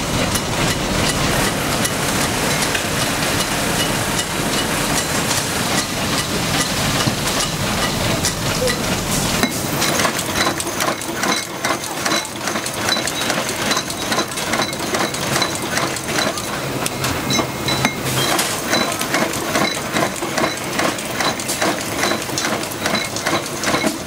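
Stator production machinery running on a factory floor: continuous mechanical clattering and knocking that settles into a fast, even rhythm of sharp ticks from about ten seconds in.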